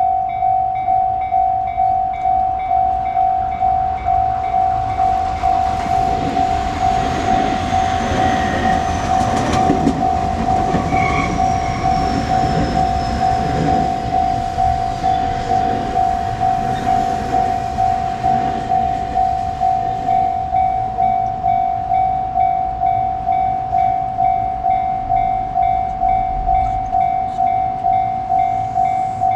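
Japanese level-crossing warning bell ringing, a steady repeated electronic ding about twice a second. An electric train passes over the crossing from about six seconds in, its rumble and rail noise swelling and fading by about nineteen seconds, while the bell keeps ringing.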